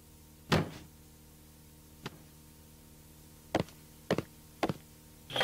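A dull thud about half a second in, then from about halfway a steady run of footsteps, about two a second, over a constant low hum.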